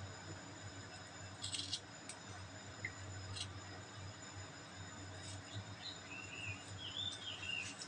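Quiet room tone with a steady low hum, a few faint light clicks, and faint wavering high chirps in the second half.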